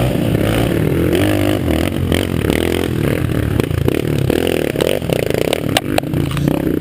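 Dirt-bike engines running and revving, the pitch rising and falling as the bikes work up a steep, rutted dirt climb. A few sharp knocks come about six seconds in.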